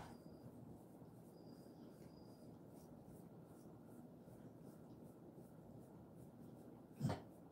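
Faint scratchy rubbing of hands massaging a dog's fur, with one short knock near the end.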